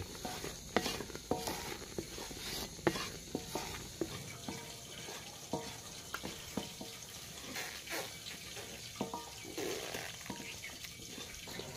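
A wooden spatula stirring thick, bubbling jaggery syrup in an aluminium karahi, with irregular knocks and scrapes of the wood against the metal pan. The syrup is at the point of being ready.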